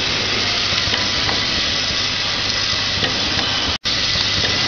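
Vial filling and capping machine running: a steady mechanical hiss over a low hum, with faint clicks. The sound cuts out for an instant a little under four seconds in.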